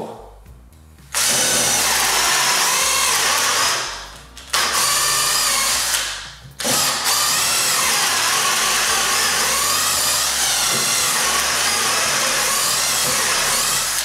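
Total TDLI2002E 20 V cordless drill driver, set to drilling mode in second speed, boring a wood auger bit into a timber beam. The drill runs in three long stretches, stopping briefly about four and about six seconds in, its pitch wavering a little under load.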